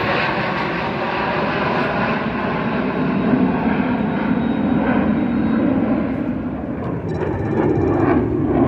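Military aircraft flying past overhead, a steady engine roar whose high end slowly fades as it moves away.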